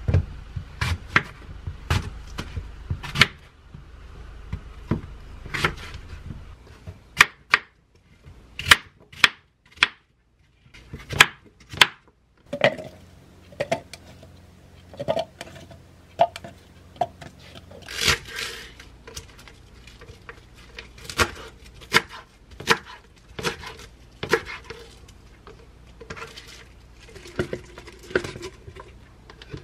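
Kitchen knife cutting an apple and kale leaves on a wooden cutting board, the pieces dropped into a clear jar: irregular sharp taps and clicks, with a short quiet stretch about ten seconds in.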